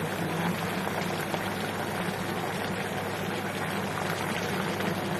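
Pot of pork ribs in coconut milk and water bubbling on the stove, a steady fizzing simmer with fine crackles over a steady low hum.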